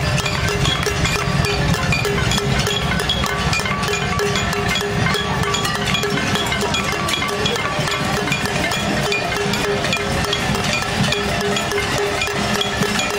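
Casserole-protest din: a marching crowd banging pots and pans, a dense, irregular metallic clatter with ringing tones.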